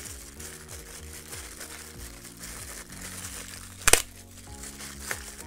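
Plastic packaging bag crinkling as it is handled and unwrapped, with one sharp crackle about four seconds in, over soft background music.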